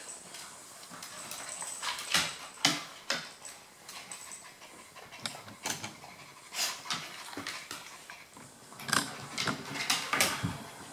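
Two dogs, a small Maltese and a Golden Retriever, playing: scattered short breathy and scuffling noises, with louder bursts about two to three seconds in and again near the end.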